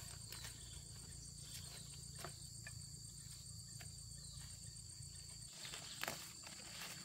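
Insects chirring steadily in a high, even drone, with a few scattered light clicks. A low rumble underneath drops out about five and a half seconds in.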